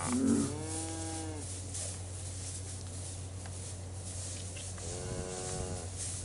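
Cattle mooing twice: a call of about a second near the start, and a shorter one about five seconds in.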